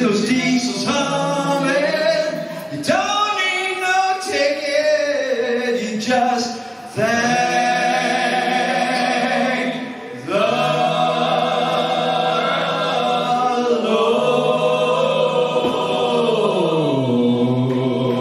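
Live band playing with several voices singing long held notes together over a steady bass line; near the end one sung note slides downward.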